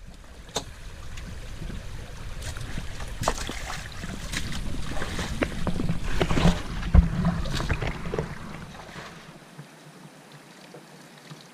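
Water splashing with scattered knocks as a canoe is worked through a shallow, rocky stretch of river, over a low wind rumble on the microphone. The splashing and knocking grow busier in the middle and thin out near the end.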